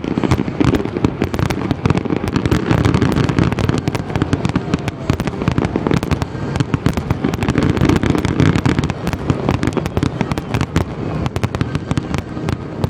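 Fireworks display: a dense, continuous barrage of bursts and crackling reports, loud and unbroken, with a heavy low rumble under the sharp cracks.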